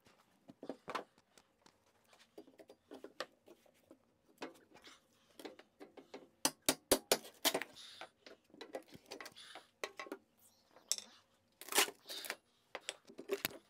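Handling noise as a lifting strap is rigged through the handles of a heavy battery: scattered clicks, knocks and rattles. A quick run of sharp clicks comes about six and a half seconds in, and another cluster near twelve seconds.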